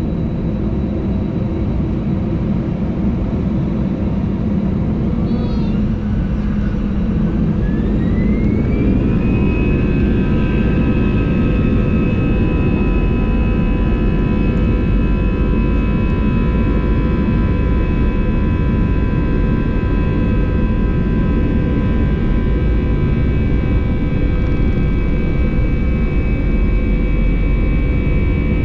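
Airbus A320 jet engines heard from inside the cabin, spooling up to take-off thrust: a whine rises in pitch over about three seconds, then holds steady over a loud continuous rumble.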